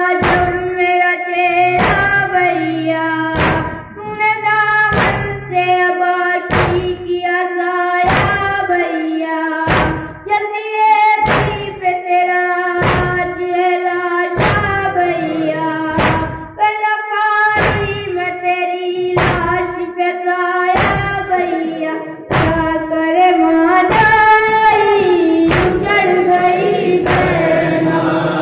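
A noha (Shia lament) sung by a high young lead voice into a microphone, with a group of men joining in. It runs over a steady beat of matam chest-beating, about one stroke every three-quarters of a second. The chanting grows louder and fuller near the end.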